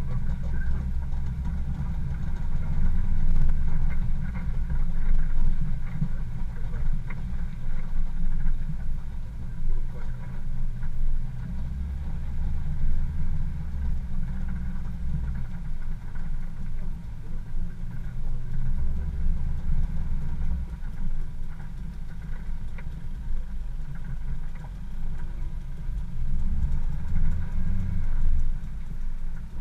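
Off-road 4x4 vehicle driving slowly over a muddy, rutted track, heard from its bonnet: a low engine and drivetrain rumble that swells and eases every few seconds.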